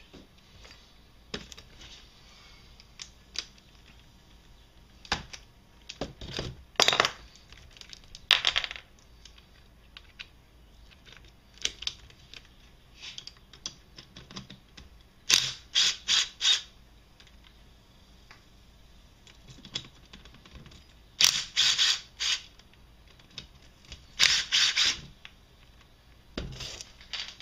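Cordless DeWalt impact driver hammering bolts loose in short bursts, several in quick groups of two or three, unbolting the through-shaft seal plate on an ATV engine case. Small clicks and taps of tools and bolts being handled come between the bursts.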